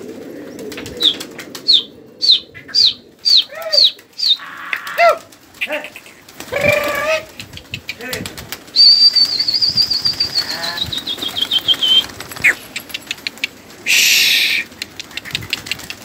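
Flock of gulgasht pigeons flapping and clattering their wings as they take off and land. A run of short falling whistles comes about a second in, and a long, loud, wavering whistle from about nine seconds slides down and stops near twelve seconds.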